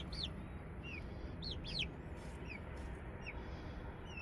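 Young chickens peeping: short, high chirps that each fall in pitch, scattered irregularly, some in quick pairs.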